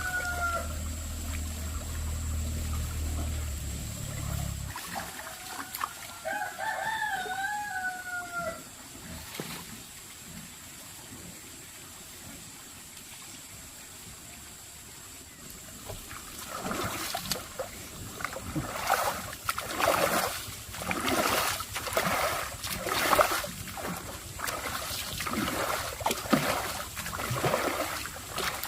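A rooster crowing, once right at the start and again with a wavering call about seven seconds in, over a low hum that cuts off about five seconds in. From about halfway on, water splashes and sloshes in quick irregular strokes, louder than the crowing.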